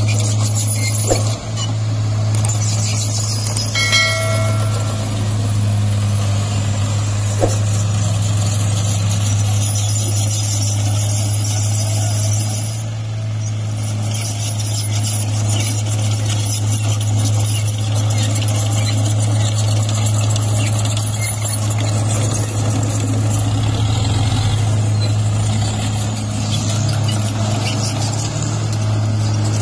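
Loaded light-duty dump truck's engine running with a steady low hum as the truck crawls slowly through mud, with a brief high-pitched tone about four seconds in.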